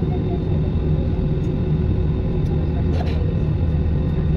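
Steady low rumble of a jet airliner's engines heard inside the cabin during ground taxi, with a thin steady whine on top.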